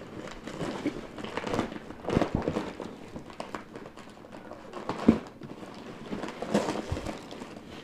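Foil wrapping, paper and bubble wrap rustling and crinkling as they are pulled off a packed object by hand, with irregular crackles and a sharper knock about five seconds in.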